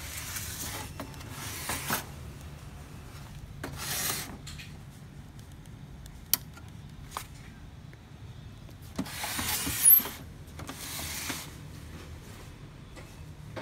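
Bursts of rubbing and scraping from hands handling a Samsung SCX-4321 laser printer, loudest about nine to ten seconds in. A sharp click about six seconds in comes as a hand reaches the power switch on the back of the printer, with a fainter click a second later.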